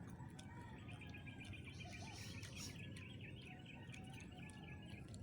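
A bird calling in a fast run of short, high chirps that goes on for about four seconds, faint over low outdoor background noise.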